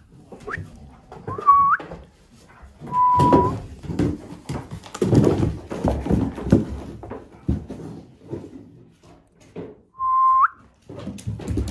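A springer spaniel puppy knocking, scraping and rustling a small cardboard tissue box around on a rug, with dull thunks. Four short high whistle-like tones cut through, each held briefly and ending in a quick upward slide.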